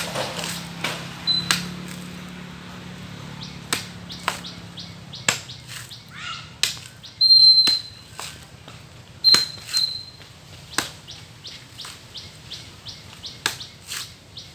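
Birds chirping and giving short, high whistles, over a series of sharp knocks that come at irregular gaps of a second or two.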